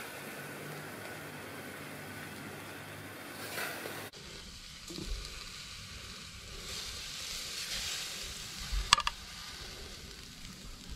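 Rump steak sizzling steadily on a charcoal grill. About nine seconds in, a sharp metallic clink as the steak is lifted off with tongs.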